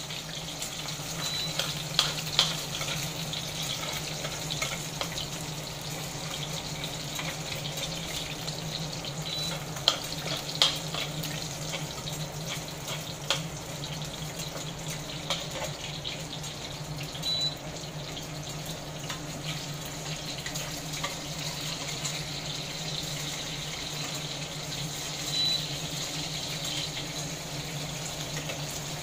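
Eggs frying in hot oil in a stainless steel pan: a steady sizzle, with a metal spatula clicking and scraping against the pan now and then. A low steady hum runs underneath, and a short high beep sounds about every eight seconds.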